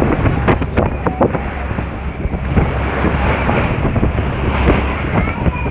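Sea waves washing on the shore under strong wind buffeting the microphone, a steady loud rumble with a few sharp knocks in the first second or so. Faint short high calls come in near the end.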